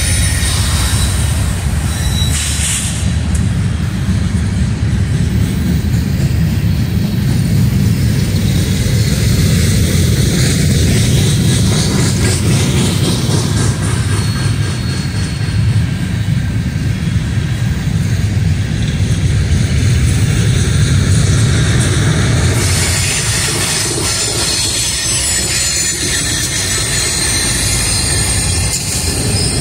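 Freight train passing close by: BNSF GE diesel locomotives running, then a string of open-top hopper cars rolling past with a steady deep rumble of wheels on rail. About three-quarters of the way in the sound changes abruptly to an Amtrak passenger train passing, led by a Siemens Charger and a GE P42 diesel locomotive.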